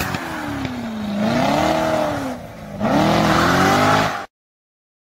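C7 Corvette's V8 revving up and down in a burnout, the pitch rising and falling, with the rear tyres spinning on the road. It cuts off abruptly about four seconds in.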